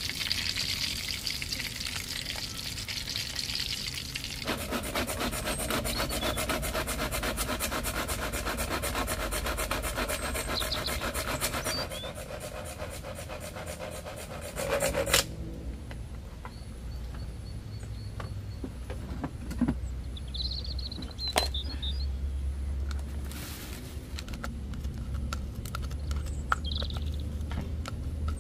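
A small food chopper blitzing red chillies for about ten seconds, a steady motor whirr under rapid clattering of the chillies against the blade and bowl, which stops with a sharp click. A steady hiss comes before it, and birds chirp and a few light clicks follow.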